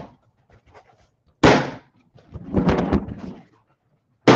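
Rubber balloons knocked and rubbed against the microphone at close range. There are sharp thumps about a second and a half in and near the end, with a longer rubbing noise between them.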